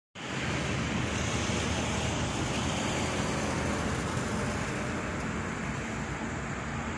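A steady rumble and hiss of distant vehicle noise, holding level with no distinct events.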